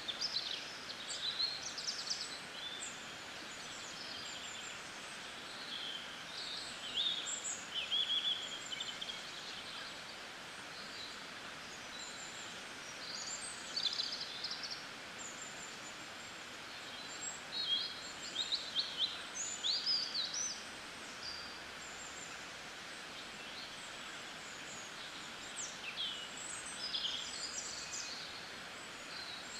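Steady hiss of rain with birds chirping in short scattered bursts, several times.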